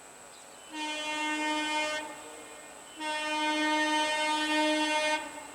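EMU local train's horn sounding two blasts: a shorter one of about a second, then, after a brief gap, a longer one of about two seconds.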